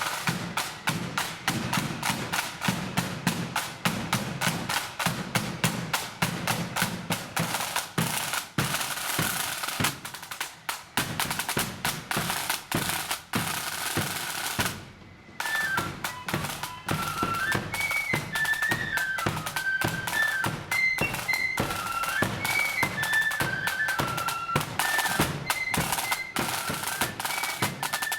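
Marching flute band: snare and bass drums playing fast rolls and beats. About halfway through there is a brief break, then a high melody, typically the band's flutes, comes in over the drums.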